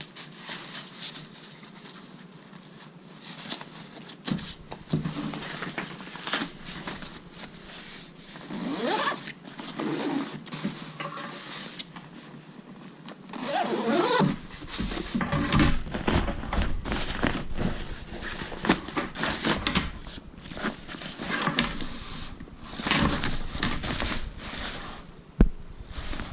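Minaal 2.0 carry-on bag being handled: zips pulled and fabric rustling in irregular bursts, with a sharp knock near the end.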